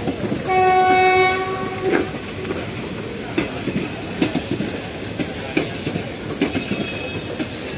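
Express train coaches passing, with wheels knocking unevenly over the rail joints. A single steady locomotive horn blast, about a second and a half long, sounds near the start and is the loudest sound.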